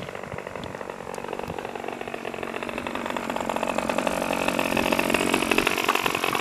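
OS 37 two-stroke glow engine of a Hirobo Shuttle RC helicopter running. Its pitch dips slightly, then rises as the level climbs over the last few seconds, the engine revving up.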